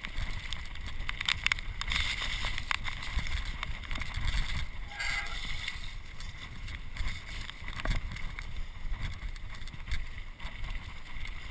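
Mountain bike descending a rough, wet gravel trail, heard through a GoPro: a steady low rumble of wind and tyres on the track, with frequent rattles and knocks from the bike jolting over stones.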